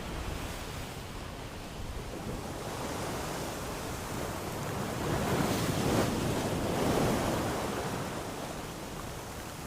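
Ocean surf: a steady wash of waves, with one swell building to its loudest around the middle and then easing off.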